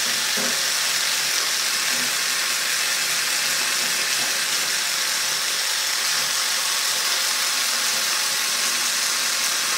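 Cordless drill spinning a flap sanding wheel of 400-grit abrasive strips, the strips brushing over the wood as they sand the corners and edges of a milled pocket: a steady hiss.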